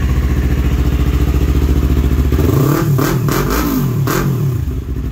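Yamaha YZF-R3's 321cc parallel-twin engine through an Akrapovic slip-on exhaust, idling steadily, then revved in about three quick throttle blips a couple of seconds in before settling back to idle.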